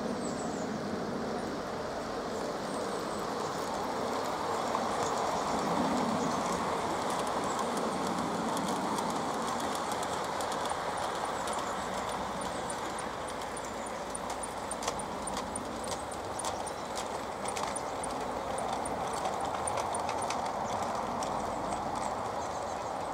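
Battery-powered LGB garden-railway model trains running on outdoor track, a steady rolling rumble of small wheels and motors with a scatter of sharp clicks in the middle stretch as wheels pass over rail joints.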